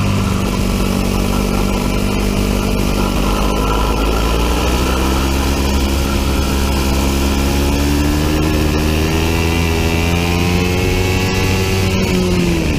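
Biland SA250 four-stroke kart engine heard on board at racing speed. Its revs sag early, then climb steadily for several seconds under acceleration to about 11,000 rpm, and drop sharply near the end.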